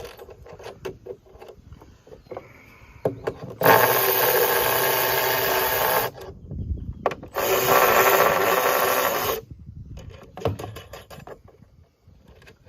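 A handheld power tool run in two bursts of about two seconds each, working on bolts in a wooden frame, with knocks and clatter of handling before and after.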